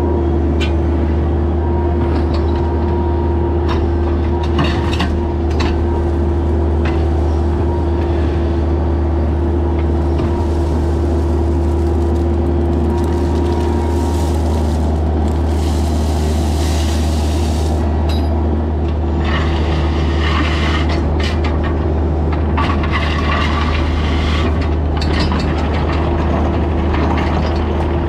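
A heavy engine running steadily at an even speed, with scattered short clicks, knocks and scrapes over it.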